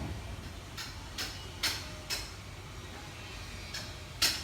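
A run of about six short, sharp metallic clicks at uneven intervals, the last the loudest, from the US military pistol belt's metal buckle and fittings being handled, over a low steady hum.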